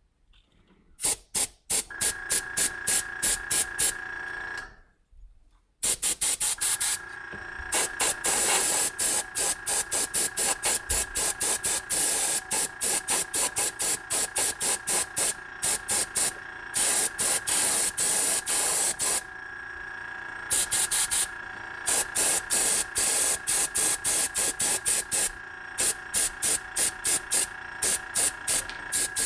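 Airbrush spraying paint in rapid short hissing bursts, about three a second, over a steady high hum. Everything stops for about a second near the start, then the bursts resume with brief pauses.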